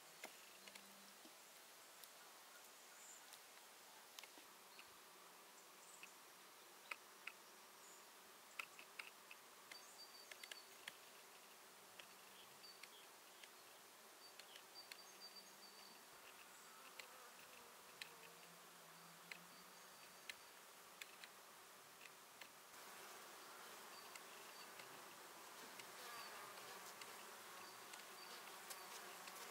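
Faint buzzing of flying insects passing close by, the hum coming and going several times, with scattered small clicks and faint high chirps.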